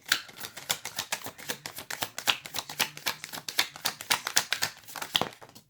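Tarot deck being shuffled by hand: a quick, steady run of card flicks and slaps, many to the second, stopping just before the end.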